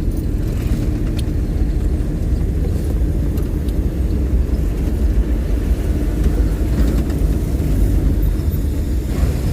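Steady low rumble of a car on the move: engine and road noise with no clear change in speed.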